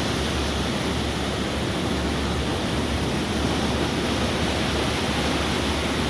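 A steady, even rushing noise with no pitch and no surges, cut off abruptly at the end.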